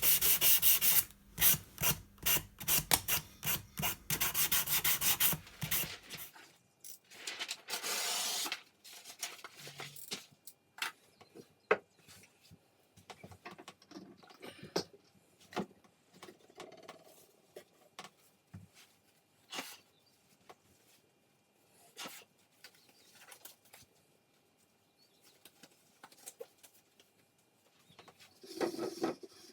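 Abrasive paper rubbed by hand over wood in quick back-and-forth strokes for about the first six seconds, then one more short scraping pass. After that come only scattered light knocks and clicks of things being handled.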